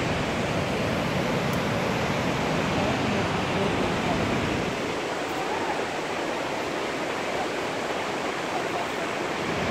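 Steady rush of a mountain river through the gorge below, a constant even noise with no break.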